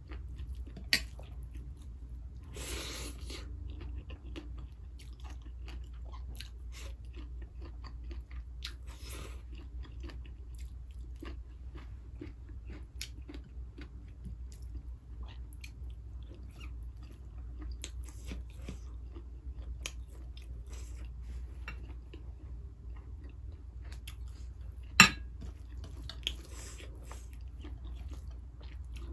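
A person chewing and crunching food close to the microphone, with many small wet mouth clicks and smacks over a steady low hum. There is a sharp click about a second in and a louder one near the end.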